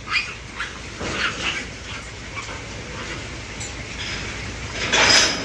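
Piglets giving short, high squeals several times in the first second and a half, with a louder, harsher burst about five seconds in.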